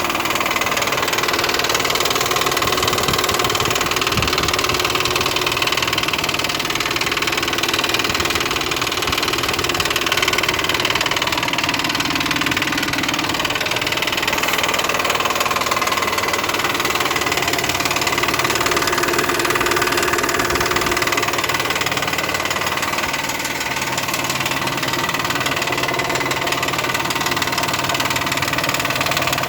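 Mitsubishi 6G75 3.8-litre V6 running with a rapid, steady knocking from the hydraulic timing-belt tensioner: the tensioner, a LYNX part about a year old, is failing.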